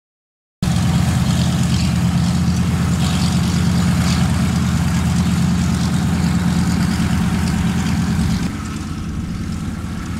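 Douglas C-47's twin Pratt & Whitney R-1830 radial engines idling on the ground, a steady deep engine sound that cuts in abruptly just after the start and steps down a little in level about two seconds before the end.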